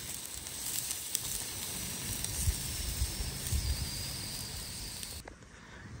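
Thüringer bratwursts sizzling on a grate over glowing charcoal, with fine crackling and hissing, until the sound cuts off about five seconds in.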